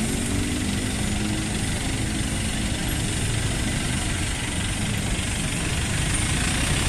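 Engine of a Bandros open-sided tourist bus idling at the curb: a steady low rumble, with street traffic noise around it.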